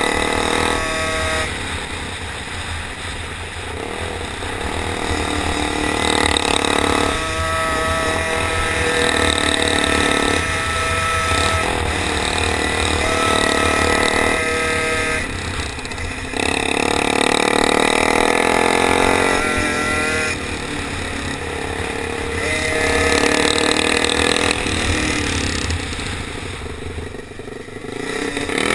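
Motorized-bicycle race engine heard from onboard, its pitch rising and falling every few seconds as the bike accelerates and eases off around the track, with a heavy wind rumble on the microphone.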